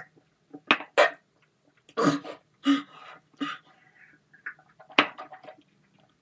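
A person coughing and gagging in a string of short, harsh bursts with brief gaps between them, his throat burning from a mouthful of dry garlic powder.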